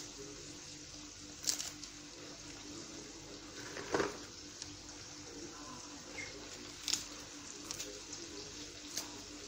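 Lettuce leaves torn by hand, with a few short crisp snaps about every two to three seconds, over a steady hiss.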